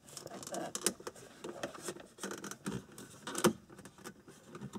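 A duct-taped flathead screwdriver prying at a plastic switch pod in a Nissan Maxima's dashboard: scraping and small plastic clicks, with one sharper click about three and a half seconds in.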